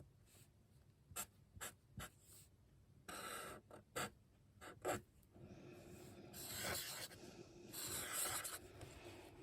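Paintbrush working on watercolour paper, faint. There are several sharp taps in the first five seconds, then a longer stretch of soft brushing.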